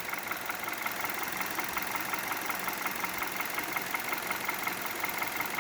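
Hyundai Solaris's G4FC 1.6-litre four-cylinder petrol engine idling with a steady, even knock, about four to five a second. The owner feels it comes from the top of the engine, and decoking has not cured it.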